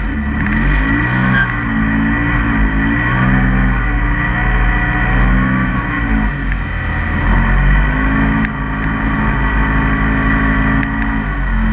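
Polaris RZR side-by-side's engine revving up and down as it is driven through deep snow, the pitch rising and falling repeatedly with the throttle.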